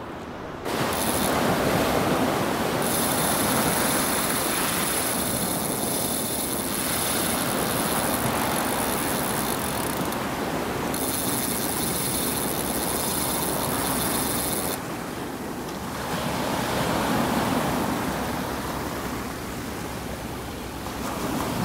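Ocean surf washing up the beach, a steady rushing noise that swells and eases. A thin, high-pitched whine runs over it for most of the first fifteen seconds.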